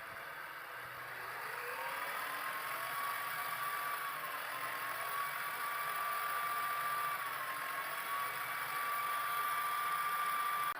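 A home-built lathe running through its gearbox with a whine. The whine rises in pitch over the first two seconds as the machine speeds up, then holds steady, dips briefly twice, and stops abruptly.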